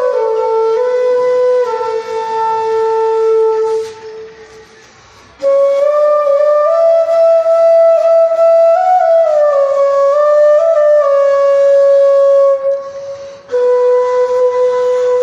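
Background music: a slow melody of long, held notes. It fades out about four seconds in and comes back about a second and a half later.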